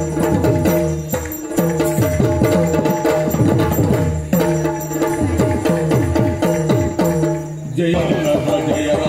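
Yakshagana accompaniment music: drum strokes that slide down in pitch, played over a steady harmonium drone.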